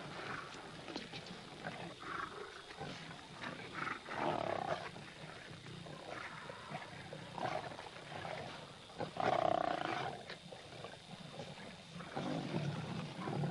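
Lions growling and snarling in repeated harsh bursts, loudest about two-thirds of the way in, as the pride squabbles over food at a wildebeest kill.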